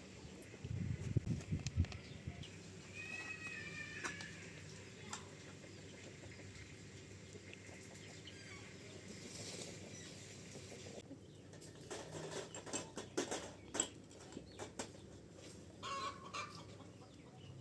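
Domestic chickens clucking, with a brief flurry of wing flapping about a second in and scattered sharp clicks and knocks later on.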